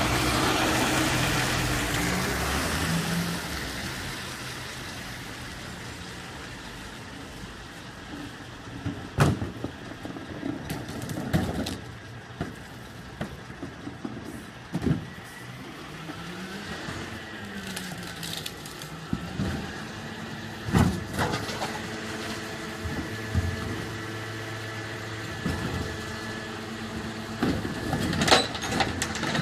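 Scania split-pack bin lorry passing close on a wet road, then running at a steady engine hum while it stands. Sharp metal clanks and knocks come every few seconds as a wheelie bin is handled at the rear lift, with a rising and falling whine in the middle.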